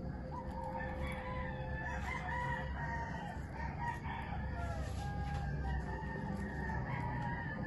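Domestic fowl calling in the background: overlapping pitched calls that waver, with a few faint clicks as a metal fork cuts the sticky rice cake on its banana leaf.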